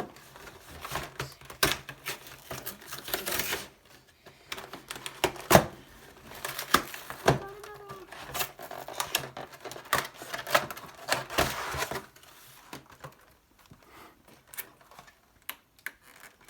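A cardboard Pokémon card collector box and its plastic wrapping being opened by hand: irregular crinkling, tearing and clicking, busiest for about twelve seconds and then fewer and quieter.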